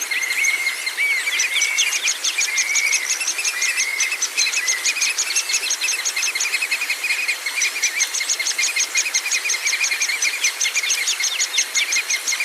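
Songbirds chirping and calling over one another, with a fast, even, cricket-like ticking trill running through most of it that pauses briefly a little past the middle.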